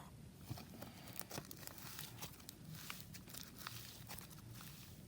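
Slime being pulled out and handled by hand, with scattered faint crackles and small clicks.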